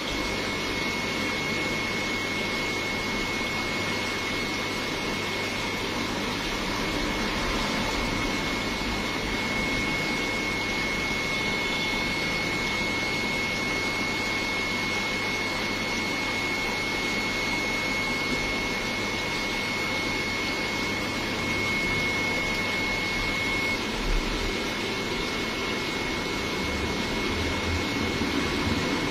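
Steady hum and hiss of aquarium equipment, air pump and filter running with bubbling aeration, with a thin constant high whine over it. A single light bump about three quarters of the way through.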